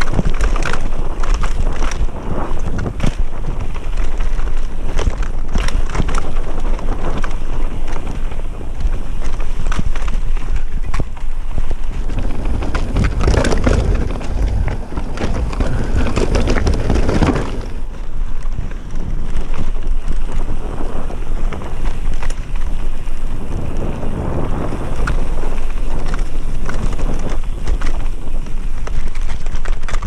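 Mountain bike descending a rough dirt trail: steady wind buffeting on the camera microphone over the rolling tyres, with frequent rattles and knocks as the bike goes over bumps, louder for a few seconds around the middle.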